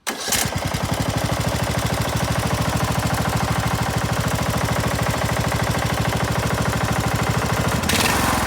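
Riding lawn mower's 20 horsepower Briggs & Stratton engine starting almost at once, then running with a steady, even rumble. It gets louder near the end.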